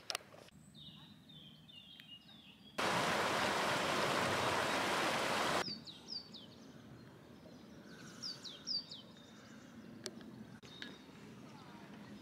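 Small songbirds chirping and calling, with short downward-sweeping calls. About three seconds in, a loud steady rushing hiss cuts in suddenly and stops just as suddenly about three seconds later; it is the loudest sound here.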